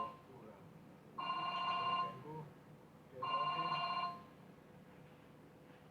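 Telephone ringing: an electronic ring tone sounds twice, each ring under a second long and about two seconds apart.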